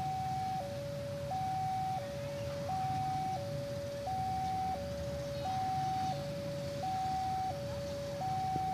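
Railway level-crossing warning alarm sounding its two-tone signal, alternating between a higher and a lower note, each held about two-thirds of a second: the crossing is closed for an approaching train. A low rumble of vehicle engines runs underneath.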